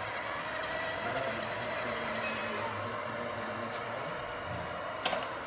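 Radio-controlled model construction trucks running: a steady mechanical whir, with one sharp click about five seconds in.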